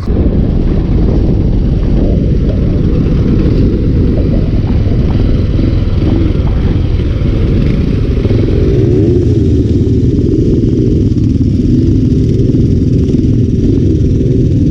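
Motorcycle engine running steadily while riding, under a loud, continuous low rumble.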